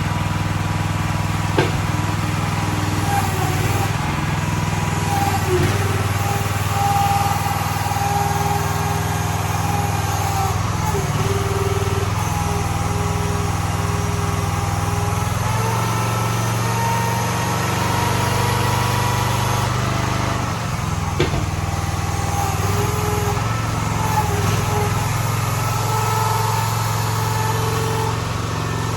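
Small gasoline engine of a towable mini excavator running steadily, with a higher whine that comes and goes and shifts in pitch as the hydraulics are worked, and a few sharp clicks.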